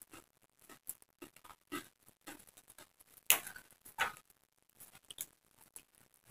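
Close-miked small crisp snaps and rustles of fresh young jengkol leaves being plucked from their stems by hand: irregular soft clicks, with two louder snaps a little past the middle.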